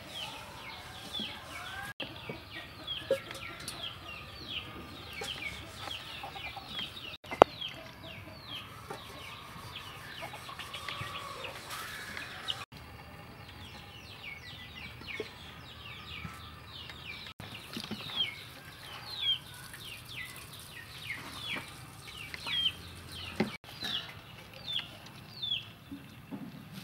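Birds peeping throughout: short, high, falling calls, several a second. One sharp knock sounds about seven seconds in.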